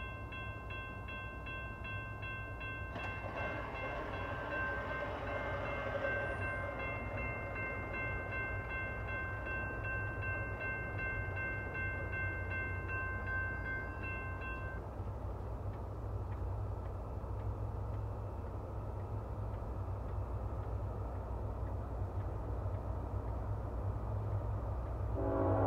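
Railroad grade-crossing warning bell ringing steadily, stopping about fifteen seconds in. After that a low rumble from the approaching train slowly grows louder, and a train's air horn starts just at the end.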